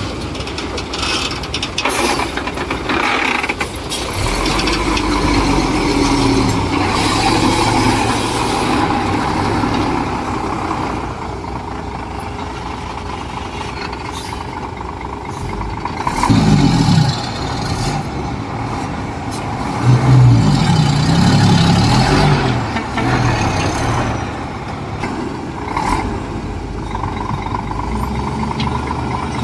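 Heavy diesel earthmoving machinery working: a bulldozer and dump truck engines running, with the revs rising and falling a couple of times in the second half. Occasional metallic knocks and stretches of hiss come through over the engine sound.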